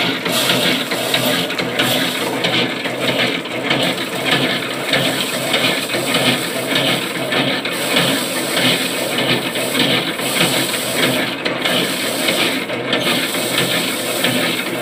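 Powered paddy thresher running: the spinning toothed drum rattles and rasps through bundles of rice straw held against it, a continuous clattering noise that swells and dips, over the steady drone of the machine.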